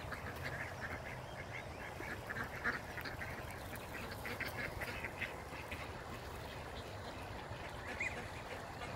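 Ducks and gulls on a pond calling: a fairly faint scatter of short quacks and cries, many in quick succession.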